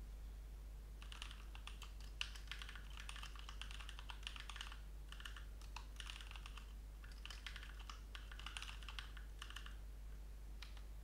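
Typing on a computer keyboard: quick runs of key clicks in several bursts with short pauses, starting about a second in.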